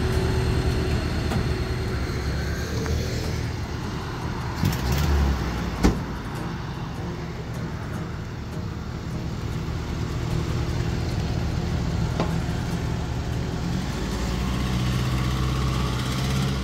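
Old Mitsubishi-built mini pickup's carbureted four-cylinder engine running as the truck pulls away and drives around, getting louder near the end. A thud and a sharp knock come about five to six seconds in.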